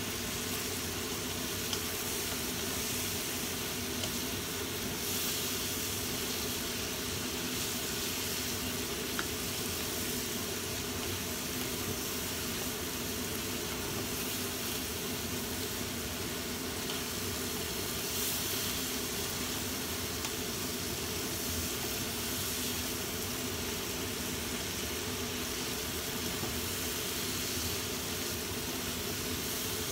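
Squid, petai and vegetables sizzling in a frying pan as they are stirred with a wooden spatula, over a steady hum.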